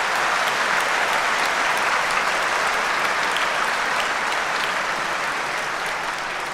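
Large hall audience applauding, a dense steady clapping that begins to die away near the end.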